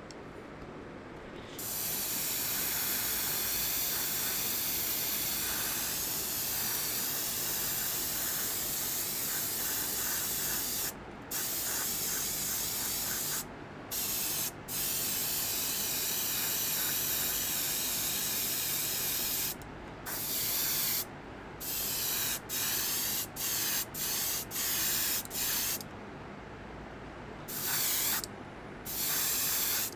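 Gravity-feed airbrush spraying paint: a loud, steady hiss of air and atomised paint that starts about a second and a half in, breaks off briefly a few times, and later comes as a run of short bursts as the trigger is pressed and released.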